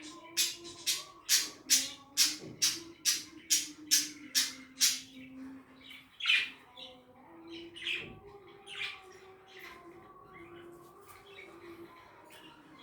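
Budgerigars squawking in a quick, even run of about two sharp calls a second, then a few scattered calls in the second half.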